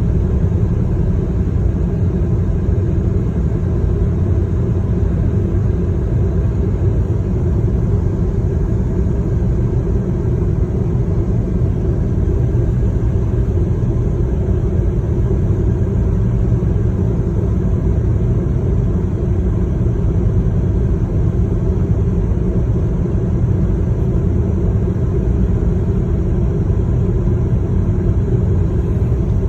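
Steady low rumble of a vehicle in motion, even and unchanging throughout.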